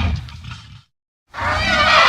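Custom monster roar sound effects: one growling roar fades out in the first second, and after a short silence a second roar, with a wavering, whinny-like high pitch, starts about 1.3 seconds in.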